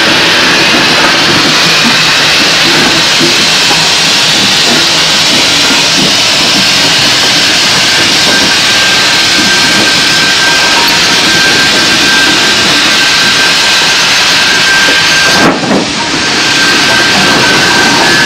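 Small steam tank locomotive shunting wagons, with a loud steady hiss of steam and an uneven low rumble of the engine and wagons. A thin steady tone comes in about halfway through, and the sound briefly drops out about 15 seconds in.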